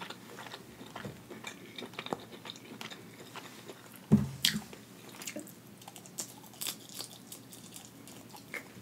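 Close-miked chewing and wet mouth sounds of someone eating hibachi food, with many small clicks and smacks. A brief louder mouth sound about four seconds in.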